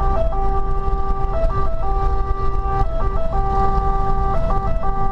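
Fire engine's two-tone siren heard from inside the cab, switching between a low and a high note in an uneven, repeating pattern, over the low rumble of the truck's engine and tyres.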